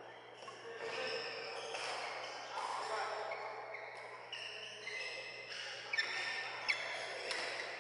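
Badminton rally: sharp racket-on-shuttlecock hits, the two loudest about six and six and a half seconds in, over indistinct voices echoing in a large sports hall.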